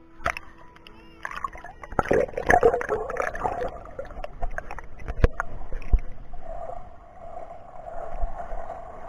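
Water sloshing, splashing and gurgling around a camera going in and out of the surface of a pool, with a few sharp knocks. It settles into a steadier muffled underwater rush in the second half.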